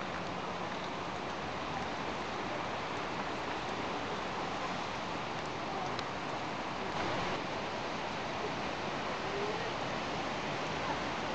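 Heavy downpour: a steady, even hiss of rain falling on roofs and a wet street.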